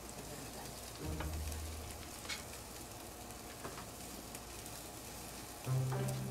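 Marinated barbecue meat sizzling and crackling as it cooks on a grill. A low steady hum comes in for about a second early on and again near the end.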